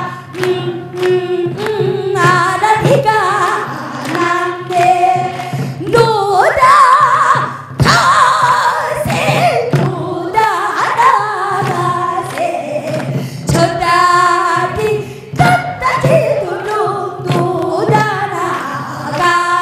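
A female pansori singer (sorikkun) sings a Korean folk melody through a microphone in phrases, her voice wavering with heavy vibrato.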